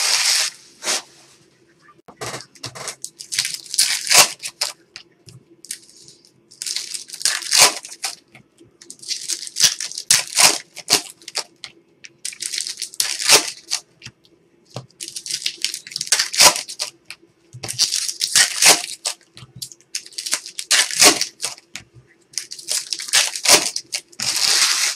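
Foil trading-card packs crinkling and rustling as they are handled and pulled out by the handful, in repeated bursts every couple of seconds over a faint steady hum.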